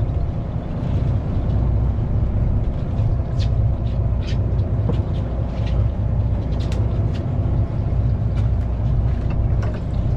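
A fishing boat's engine runs as a steady low rumble, with scattered short clicks over it.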